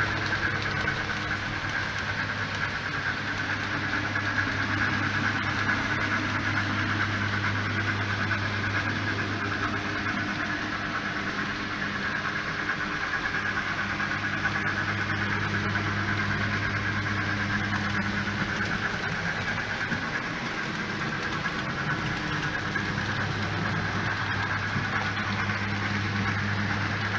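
Model Southern Pacific GS-4 steam locomotive No. 4456 running steadily with its train: an even mechanical running sound from its sound decoder and its wheels on the track, over a low hum.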